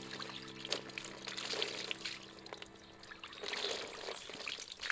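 Water poured from a metal bowl over a baby monkey, splashing and dribbling off its fur onto the ground. The pouring gets louder again about three and a half seconds in.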